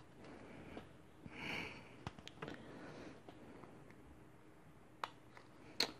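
Faint clicks and scrapes of a hand tool being twisted into a small container to widen a hole, with a short sniff-like hiss about one and a half seconds in.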